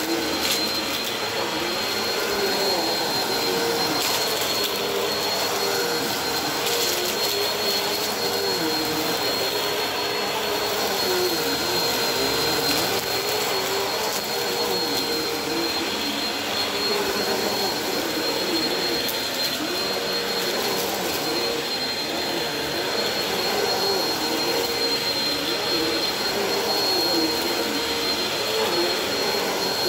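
Bagless upright vacuum cleaner running steadily over a thick shag rug, a continuous motor whine whose pitch wavers as it works, with occasional crunchy crackles of debris being picked up.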